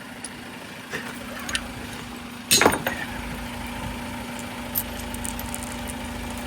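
Vehicle engine idling with a steady hum, and one loud bang about two and a half seconds in, with a few lighter knocks either side of it.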